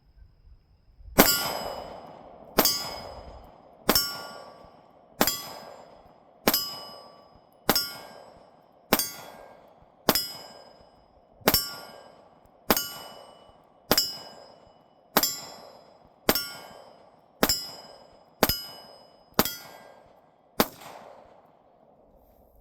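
Glock 45 9mm pistol fired in slow, steady single shots, seventeen in all, about one every 1.2 seconds. Each shot is followed by a metallic ringing that dies away within about a second.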